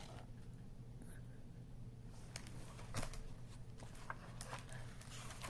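Quiet room tone with a steady low hum and a few faint clicks and rustles, like a paper book being handled between pages.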